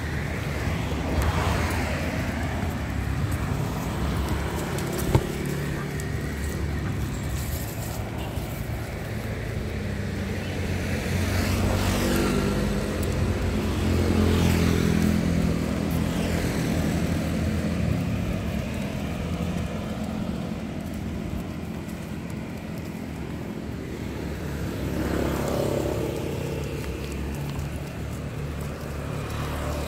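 Road traffic: motor vehicle engines running steadily, with vehicles passing louder about twelve to sixteen seconds in and again about twenty-five seconds in. A single sharp click about five seconds in.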